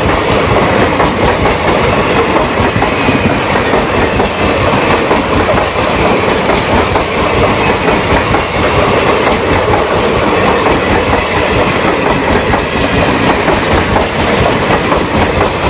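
A train running along the track, its wheels rattling and clattering over the rails in a steady, loud rumble.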